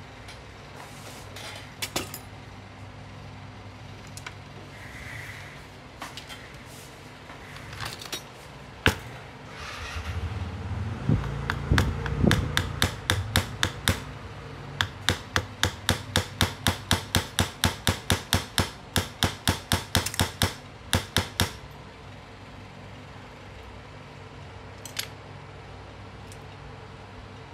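Small hammer tapping on a steel anvil block to peen over a rivet on a weight-driven wall clock's chain wheel, about three sharp taps a second for some ten seconds. Before and after the tapping come scattered clicks of hand tools being picked up and set down.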